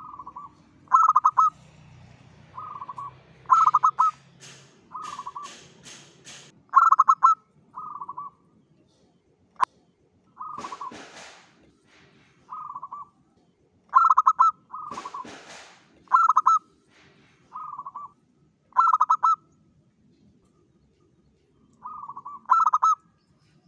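Zebra dove (perkutut) cooing: short, pitched coos repeated in irregular clusters. They are mixed with a few brief noisy bursts and one sharp click about ten seconds in.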